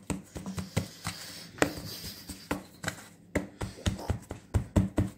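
Hands patting and pressing soft balls of sfenj yeast dough on a flour-dusted wooden board: a run of irregular soft taps and slaps.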